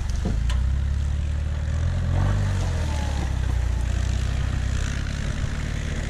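Engine of a lifted Toyota Hilux pickup running at low revs as the truck crawls through mud and slushy snow, its pitch rising and falling slightly with the throttle.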